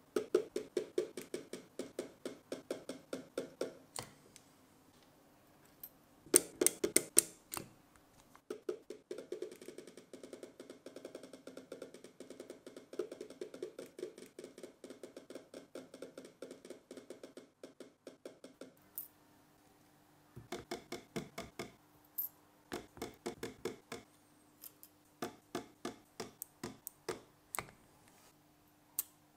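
Battery spot welder firing in quick runs of sharp snaps, several a second, as its copper electrodes weld nickel strips onto 18650 lithium-ion cells. The runs stop and start with short pauses.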